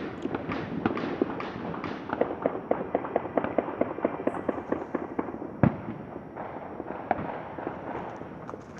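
Distant New Year's fireworks and celebratory gunfire: a dense scatter of sharp bangs and pops. About two seconds in there is a rapid, evenly spaced run of pops, and a little past halfway there is a single louder bang.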